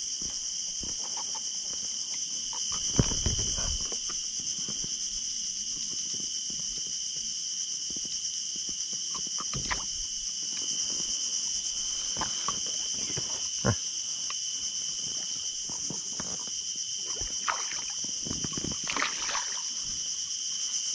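Steady high-pitched chorus of insects, crickets or cicadas, with scattered short clicks and knocks of a landing net and fishing gear being handled in an inflatable boat; the sharpest knocks come about three seconds in and again near the middle.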